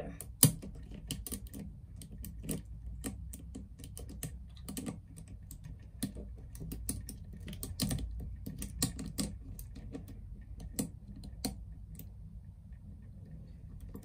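Lock picks working in a Brinks 164 padlock's keyway: irregular small metallic clicks and scrapes, with one sharper click about half a second in.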